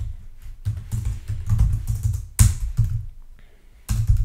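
Typing on a computer keyboard: irregular keystrokes, with a couple of louder key presses about two and a half and four seconds in.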